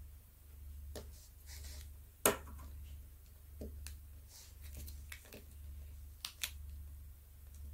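Hands pressing and smoothing a paper-and-plastic cover sheet down onto a diamond painting canvas: soft rustling and light handling clicks, one sharper click about two seconds in and two quick ticks close together near the end.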